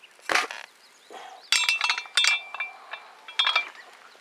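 Metal cookware clinking and clattering: a sharp knock near the start, a run of ringing clinks around the middle, and another short clink later on.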